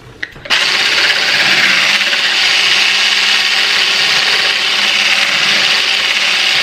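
Handheld electric whisk whipping double cream in a plastic bowl: a few handling clicks, then the motor switches on about half a second in and runs with a steady whir.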